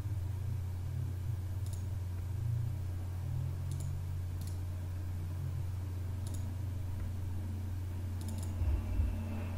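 A few sparse, faint computer mouse clicks, about five, over a steady low hum, with a soft low bump near the end.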